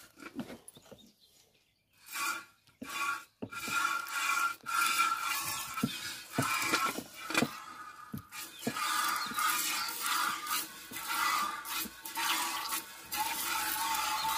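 Cow being milked by hand: milk squirting in a run of quick jets into a stainless steel pail, starting about two seconds in.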